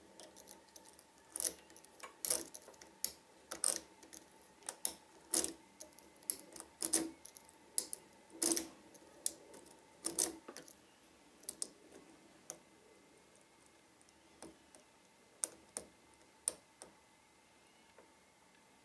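Irregular sharp metallic clicks and light scraping of a lock pick and tension wrench working the pins inside a Trioving 5632 padlock. The clicks come thickly for the first half and grow sparser near the end.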